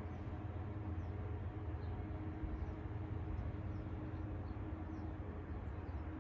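STH-10 outdoor warning siren, distant and faint, still sounding as a low steady tone that fades in and out, over a low rumble of wind and traffic. A few faint bird chirps.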